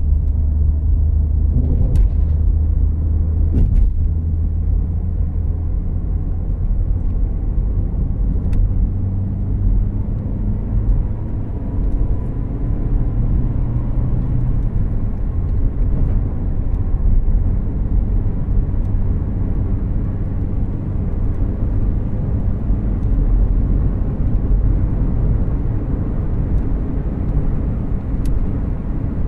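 Cabin sound of a 2014 Volkswagen Jetta Clásico under way, heard from the passenger seat: a steady low rumble of engine and road noise, with a few brief clicks.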